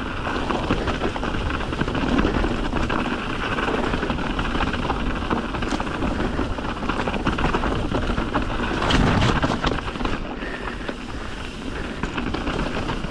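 Mountain bike riding down a dirt trail: steady tyre noise and rattling of the bike over rough ground, with wind on the microphone.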